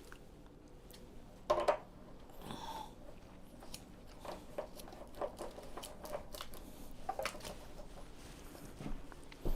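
Scattered handling clicks, knocks and scrapes as a hose is hooked up to a water heater, with a louder pair of knocks about one and a half seconds in.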